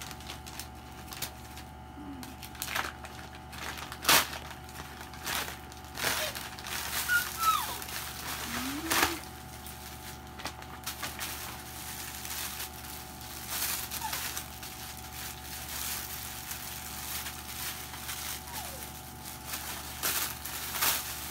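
Plastic packaging and clothing rustling and crinkling as baby clothes are unwrapped and handled, in irregular crackly bursts with a sharper crackle about four seconds in.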